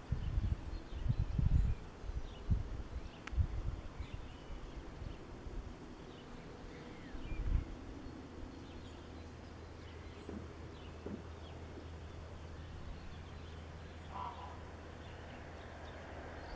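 Small birds chirping, with irregular low rumbles of wind on the microphone in the first few seconds. A faint steady low hum sets in about halfway through.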